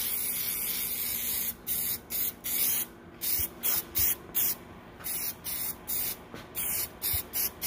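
Aerosol spray-paint can hissing: one long spray of about a second and a half, then a run of short bursts, roughly two a second.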